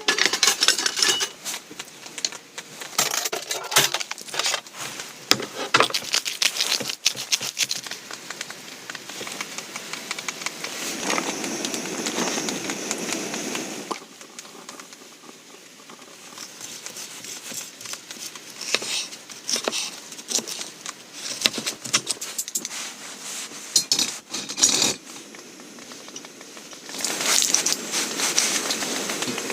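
Camp cooking preparation sounds: a run of small clinks, scrapes and crinkling as utensils, cookware and packaging are handled, with a louder stretch of hissing noise about 11 seconds in lasting a few seconds.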